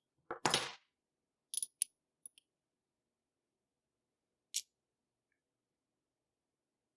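A few small metallic clicks and clinks from a padlock and its shim being handled: a cluster near the start, two ringing clinks about a second and a half in, and a single click a little past four seconds.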